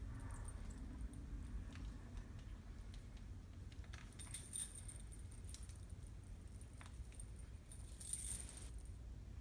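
Faint handling noises as hair is wrapped around a curling wand: scattered light clicks and a jingling rattle, with two short rustles about four and eight seconds in.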